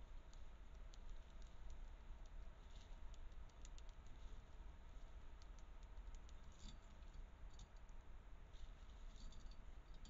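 Faint, irregular clicks and scratching from a grey squirrel's claws and teeth working at a wire-mesh peanut feeder, over a steady low hiss.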